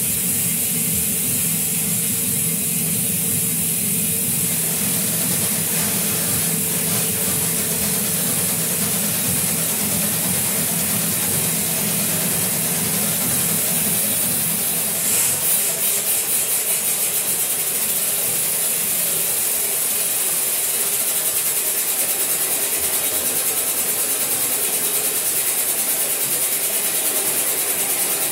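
Live electroacoustic noise music: the grain of an amplified voice processed through live electronics into a dense hissing, rubbing texture. A low hum underlies the first few seconds before the noise thickens. There is a brief fluttering about halfway through, and a fast regular pulsing in the last several seconds.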